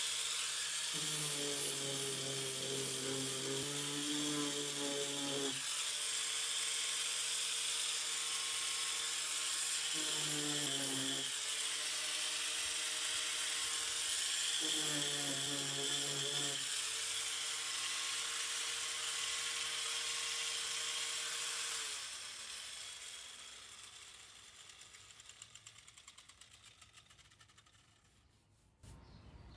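Electric sander running on the RV's fiberglass shell around the old furnace vent holes. Its note changes three times as it is worked against the surface. About 22 seconds in it is switched off and winds down to a stop over several seconds.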